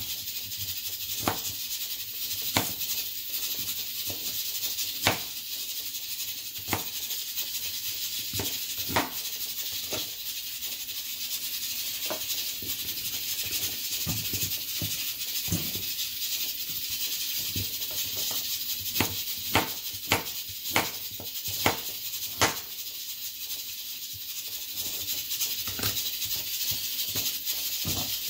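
Kitchen knife chopping an onion and a carrot on a plastic cutting board: single sharp knocks at irregular intervals, a closer run of them about two-thirds of the way in, over a steady high hiss.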